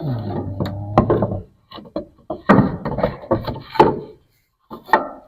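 A wooden board being turned and worked into place behind other boards. It gives a low creak and scrape for the first second and a half, then knocks and rubs against the wood, with one last sharp knock near the end.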